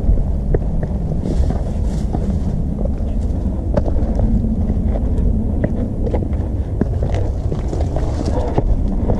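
Wind buffeting the microphone: a steady low rumble, with scattered short clicks on top.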